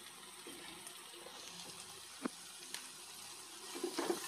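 Faint steady sizzle of masala frying in a non-stick kadai, with a couple of light taps. Near the end a wooden spatula starts stirring and scraping through the pan.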